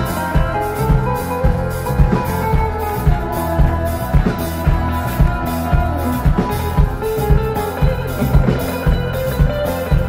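Live rock band playing an instrumental passage: a drum kit keeps a steady beat under bass and guitars, with a sustained melodic lead line on top.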